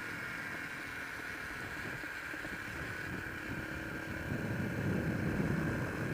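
Honda XR125's single-cylinder four-stroke engine running at road speed, with wind rushing over the microphone; it gets a little louder about two thirds of the way through.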